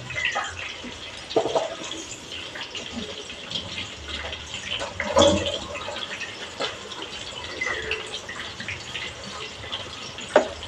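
Water splashing and trickling, with a few scattered knocks and clatters.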